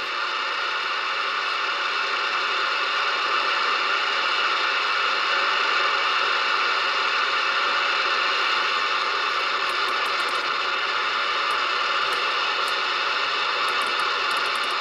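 Galaxy Pluto CB radio receiving steady band static on an empty channel, played through its speaker: no station is transmitting, only the hiss of the band. Faint clicks come near the end as the channel selector is turned.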